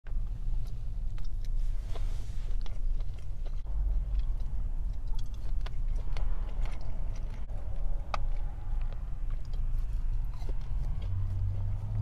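Close-miked chewing of a mouthful of fried rice: many small wet mouth clicks and smacks, over a steady low rumble.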